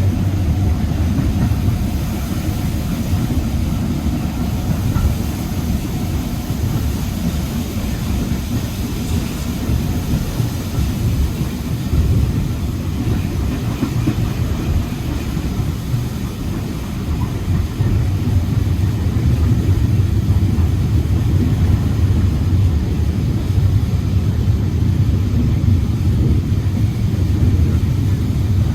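Steady low rumble of a heritage railway passenger coach running along the line, wheels on rails heard from inside the carriage, growing a little louder about two-thirds of the way in.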